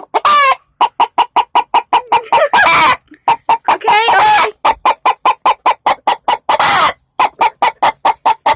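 A chicken clucking rapidly and without a break, about five short clucks a second, with a few longer drawn-out squawks in between: an agitated, angry bird.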